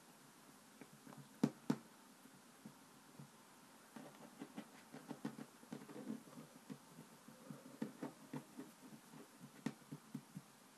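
Hands pressing and smoothing play dough against a wooden tabletop: soft, irregular taps and rubbing, busier in the second half, with two sharper knocks about a second and a half in.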